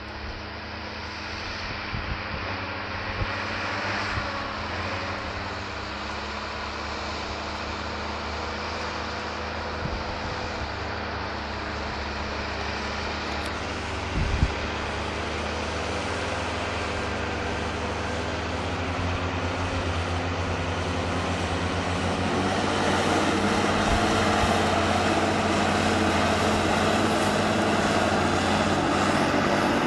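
Diesel engines of farm tractors (a Same Iron 160 and a Valtra T190) running steadily under load while plowing, growing louder as they come closer. One brief knock about halfway through.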